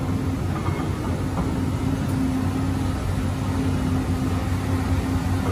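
Diesel engines of Caterpillar excavators running with a steady low hum and a constant whine above it.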